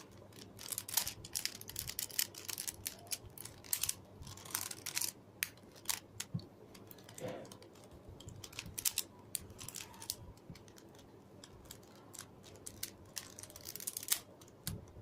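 Plastic Rubik's cube clicking and clacking as it is handled and its pieces are pushed and broken apart: irregular sharp clicks, often in quick runs.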